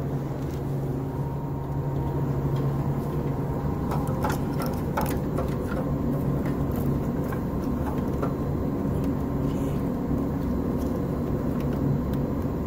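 A steady low mechanical hum from shop equipment, with a few light clicks and rattles about four to five seconds in as a wiring harness and its plastic connectors are pushed through the firewall.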